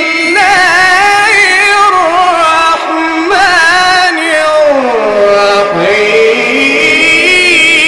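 A man's voice in melodic Quran recitation, holding long drawn-out notes with ornamented turns. The pitch glides down about halfway through, then jumps up to a higher held note.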